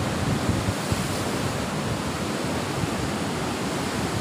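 Sea surf breaking and washing against the rocks at the foot of a cliff, a steady rush of waves, with wind buffeting the microphone.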